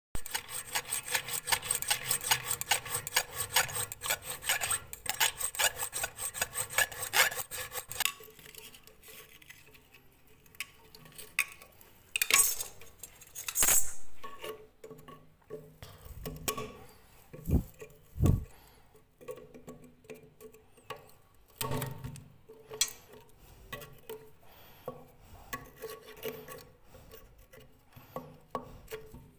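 Fast, even metal rasping strokes for about eight seconds, then scattered knocks, scrapes and a couple of dull thumps from hand tools working on a corroded toilet-tank bolt and nut.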